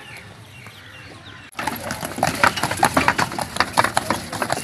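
Pony pulling a buggy on a brick path: hooves clip-clopping and the carriage rattling, a quick run of knocks several times a second. It starts suddenly about a second and a half in, after quieter outdoor background.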